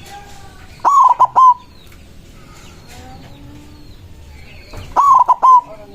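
White zebra dove (perkutut putih) singing two loud cooing phrases about four seconds apart. Each phrase is a drawn-out first note followed by three quick short notes. Faint other bird calls sound in the background.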